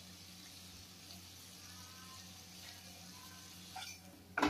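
Pieces of colocasia leaf sizzling in oil in a kadai, a steady light hiss. Near the end come two short sharp knocks, the second louder.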